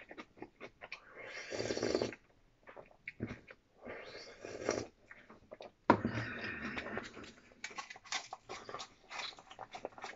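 A person eating: slurping soup from a bowl in three noisy sips about a second long, with short clicks of chopsticks and chewing in between.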